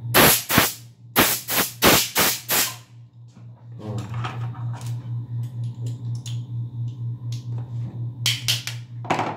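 Sharp metallic clicks and knocks of a .38 revolver's steel parts being fitted together by hand during reassembly: a quick run of them in the first three seconds and a couple more near the end. A steady pulsing machine hum runs underneath.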